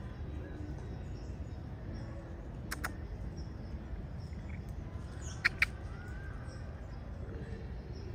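Outdoor park ambience: a steady low background rumble with faint bird chirps. There is a soft double click near three seconds, and about five and a half seconds in come two sharp clicks close together, the loudest sounds here.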